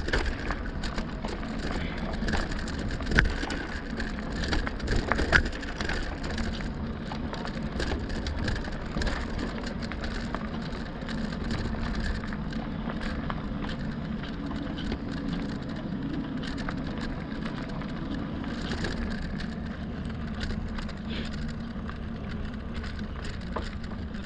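Lectric XP e-bike's 4.5-inch fat tires rolling over a rocky trail, a steady crunching of gravel and stones with sharp knocks in the first few seconds, then a more even rolling noise.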